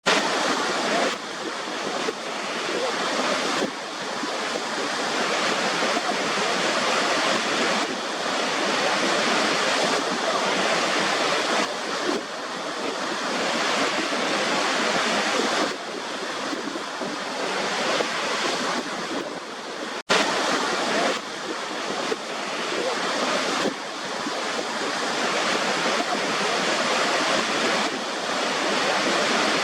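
Steady rushing white noise that swells and eases about every four seconds, much like surf, with a split-second dropout about twenty seconds in.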